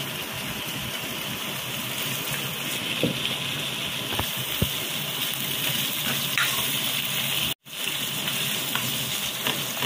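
Chicken feet frying in a hot wok with sauce poured over them, a steady sizzle, with a few light knocks of the spatula against the pan. The sound cuts out for an instant about three-quarters of the way through.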